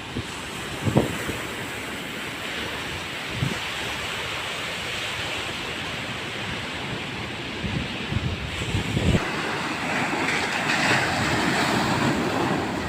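High surf breaking under strong wind, with wind gusts buffeting the microphone; a louder wave wash comes in about nine seconds in.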